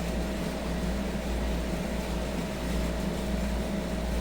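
Steady mechanical hum with a constant tone and a low rumble, like a fan or appliance running.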